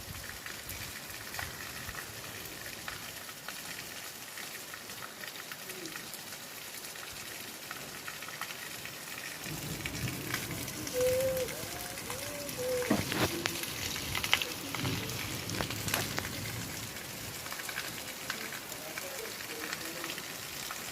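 Heavy rain falling steadily: a dense, even hiss with scattered drips and splashes. About halfway through, faint voices and other low sounds join in under the rain.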